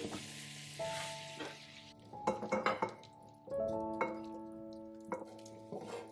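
Beef and carrots sizzling in a frying pan as they are stirred with a wooden spatula, the sizzle fading out about two seconds in. Then a run of knocks and scrapes of the spatula against the pan as the stew is tipped into a slow cooker, over background music with held notes.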